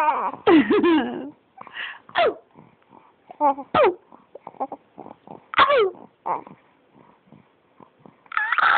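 A baby making a string of short, high vocal sounds and breathy, cough-like noises, many falling in pitch, with the loudest ones near the start and near the end. Her grandmother calls these noises a terrible cough.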